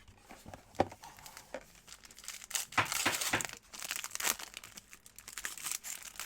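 Plastic wrapping on a trading card box or pack crinkling and tearing as it is opened by hand, in irregular crackly bursts with a sharp click about a second in.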